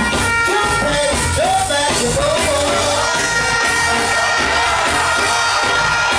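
Loud live dancehall music played through a stage sound system, with a voice singing and chanting over the beat.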